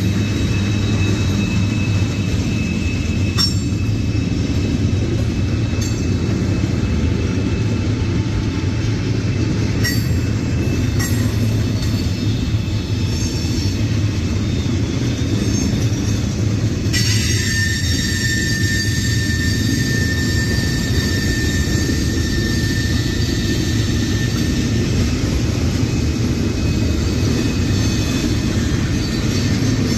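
Freight train tank cars rolling past: a steady rumble of steel wheels on rail with a few sharp clicks. A high, thin wheel squeal sets in suddenly about halfway through and holds.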